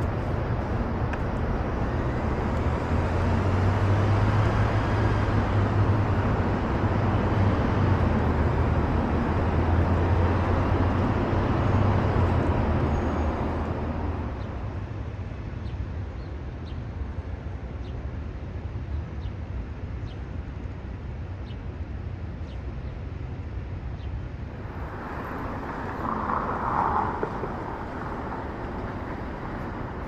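City traffic. A large vehicle's engine drones low and loud for the first dozen seconds or so, then fades. That leaves quieter, steady street noise, with a brief louder sound near the end.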